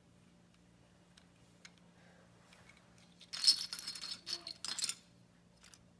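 Small parts from a children's construction toy kit, screws and rings, rattling and clinking together for about two seconds, starting about halfway through.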